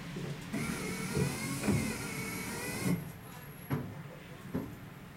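Inside a tram's driver's cab while it stands still: the tram's electrical equipment gives a wavering whine over a low hum, with a few knocks and clunks. The whine stops and the cab goes quieter about three seconds in.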